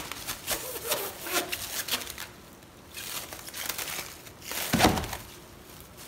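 Crinkling and rustling of a wrap being pulled and pressed over a bowl to cover it, in irregular bursts with the loudest rustle about five seconds in.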